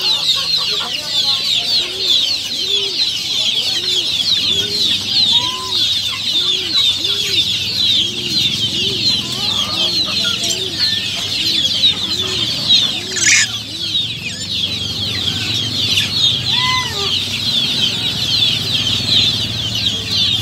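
A dense chorus of small birds chirping and peeping without a break. A low call is repeated about twice a second through the first two-thirds, and there is one brief sharp sound about 13 seconds in.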